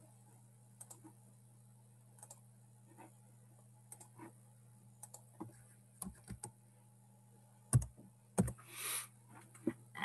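Computer mouse clicks and keyboard keystrokes, scattered and irregular, louder and closer together in the second half. Two heavier knocks come near the end, then a brief rustle, over a faint steady electrical hum.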